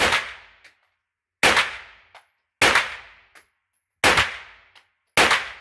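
Five shots from a 9mm AR-15-style semi-automatic carbine, fired at a steady pace about one every 1.2 to 1.4 seconds. Each shot rings on briefly in the indoor range, and a faint click follows most of them.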